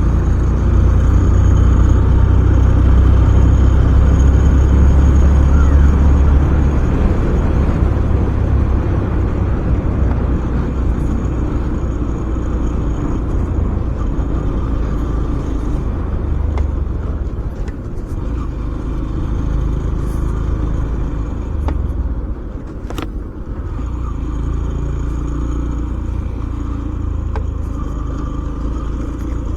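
Yamaha FZS-V4 motorcycle's single-cylinder engine running under way, with rumble and road noise from riding over a rough, broken road. It is loudest in the first several seconds, then eases off, with one sharp knock a little over three-quarters through.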